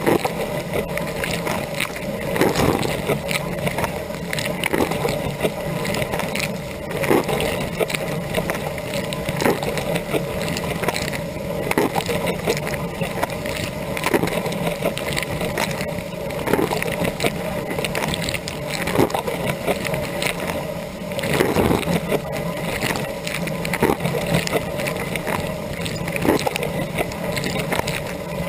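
Dishwasher rinse cycle heard from inside the tub: water jets from the rotating spray arm hissing and splashing against the racks and walls over the steady hum of the pump. A louder splash comes about every two and a half seconds as the arm's spray sweeps past.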